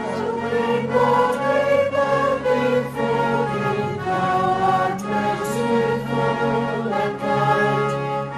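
Small mixed choir of men's and women's voices singing a hymn verse in harmony, with instrumental accompaniment. They enter together on the new verse after a brief silence.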